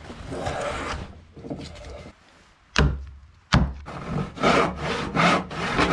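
Hand saw cutting through a wooden board, with several quick back-and-forth strokes in the last two seconds. Before that come rougher scraping strokes on wood and two sharp knocks near the middle.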